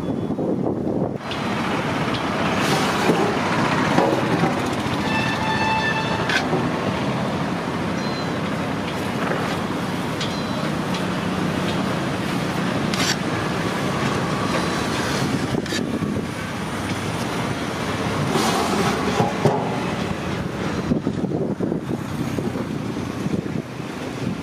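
Road traffic running past, with a vehicle horn sounding briefly about five seconds in.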